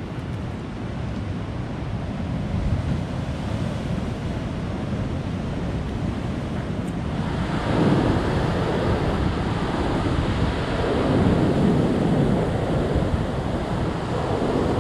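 Sea surf washing in, with wind buffeting the microphone, growing louder about halfway through in slow swells.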